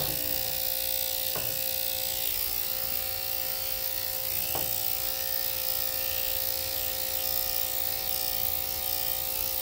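Electric dog grooming clippers running with a steady buzzing hum as they cut through a puppy's coat.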